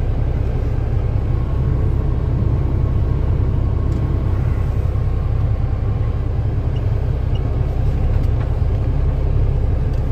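Old Freightliner truck's diesel engine idling with a steady low rumble, heard from inside the cab.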